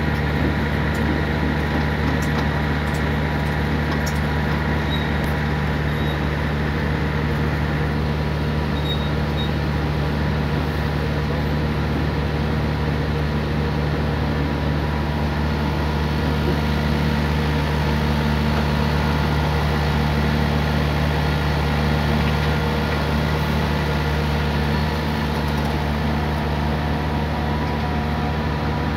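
Steady engine drone of a horizontal directional drilling rig's power unit driving the pit drill during the pipe return, even in level throughout, with a few faint clicks in the first few seconds.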